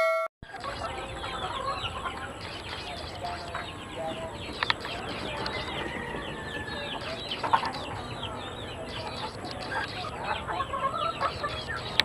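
A flock of chickens clucking and calling, many short overlapping calls, with a couple of sharp knocks partway through. A short chime ends in the first half second.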